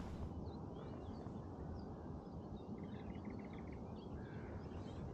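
Faint outdoor ambience: scattered small bird chirps, with a short rapid trill about three seconds in, over a low steady rumble.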